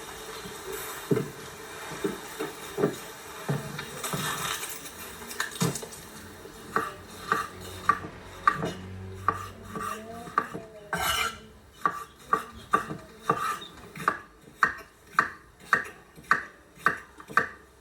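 Cutlery clattering against dishes, at first in a few scattered knocks, then from about a third of the way in as a steady run of strikes, two to three a second.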